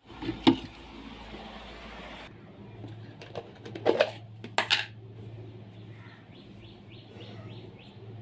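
Plastic food container handled and its lid pulled off: a click, then a few sharp plastic knocks and clicks about four seconds in, over a steady low hum. Faint bird chirps near the end.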